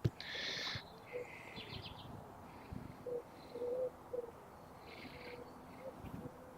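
Birds calling outdoors: a few short high calls in the first two seconds and again about five seconds in, with a few short low notes in the middle, over a quiet background.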